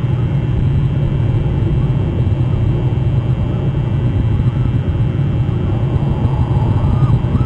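A steady low rumble, with gulls calling a few times near the end.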